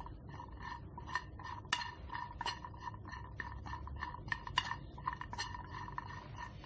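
A metal spoon stirs and tosses roasted walnut pieces in a non-stick frying pan, mixing in masala powder, with irregular clinks and scrapes of the spoon against the pan.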